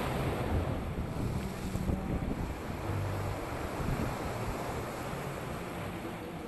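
Ocean surf washing and breaking over rock boulders at the foot of a seawall, with wind buffeting the microphone.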